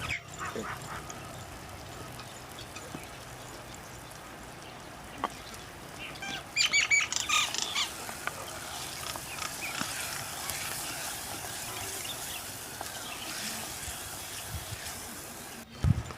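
A bird calling: a quick run of short, high calls in a burst about halfway through, over a steady outdoor hiss.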